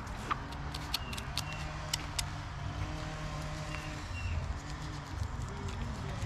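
A motor vehicle engine runs with a low, steady hum. A few sharp clicks and taps come between about one and two seconds in.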